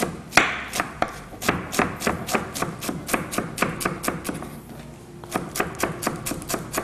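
Wide-bladed kitchen knife finely chopping shredded cabbage on a wooden cutting board: quick knocks of the blade on the board, about four or five a second, thinning briefly a little past the middle.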